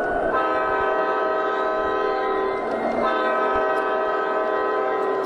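Digital sound-effect horn of an MTH G-scale BNSF EMD SD70ACe model locomotive, sounding two long chime blasts of about two seconds each with a short break near the middle. It plays over the model's steady running noise.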